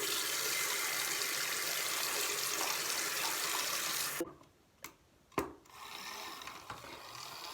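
Water running from a sink faucet to rinse soap suds out of a mini makeup-brush washing machine. The flow stops suddenly about four seconds in, two sharp knocks follow, and then water runs again more softly.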